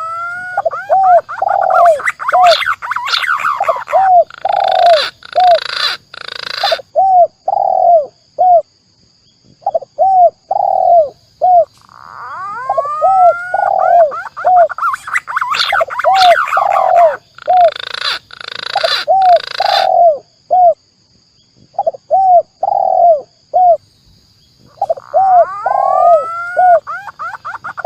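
Bird-lure recording of spotted dove (tekukur) and green pigeon (punai) calls: each phrase opens with rising whistled glides, then runs into a string of short, repeated hooked notes with a few short harsh bursts in the middle. The same phrase repeats about every 13 seconds, as a loop.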